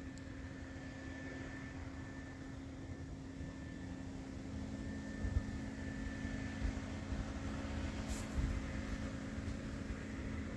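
A steady mechanical hum with a faint high whine, and a couple of dull low thumps partway through.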